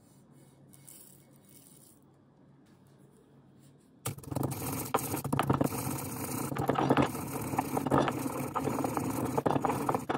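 Stone pestle grinding toasted cumin and coriander seeds in a black stone mortar: a dense run of gritty scraping and crunching that starts suddenly about four seconds in and goes on for about six seconds.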